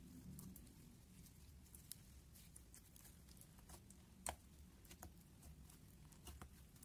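Pink textured slime being kneaded by hand and pressed flat on a glass plate, giving soft, scattered sticky clicks and pops, with one louder pop about four seconds in.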